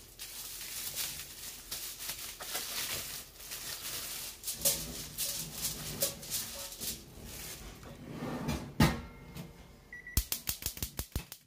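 Plastic wrap crinkling and rustling as a salmon fillet is unwrapped onto foil in a gas stove's fish grill drawer. About nine seconds in the drawer shuts with a knock, then a short beep and a quick run of igniter clicks, about eight a second, as the fish grill is lit.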